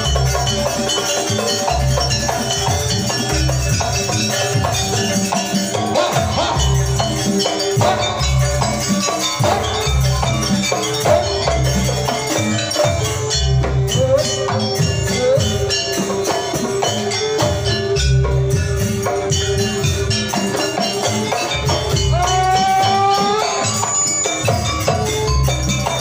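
Live East Javanese gamelan-style ensemble accompanying a dance: kendang hand drums keep a steady beat under a held melody line, with a rising, sliding melodic phrase near the end.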